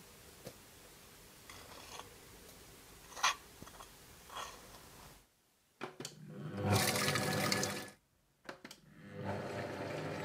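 Magimix Cook Expert food processor: a few light clicks, then two spells of its motor running with a rushing whir over a low hum, the second starting about nine seconds in as the heated 120 °C stirring program gets going.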